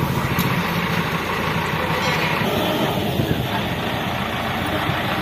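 Heavy diesel engine running steadily close by, with a fast, even low beat.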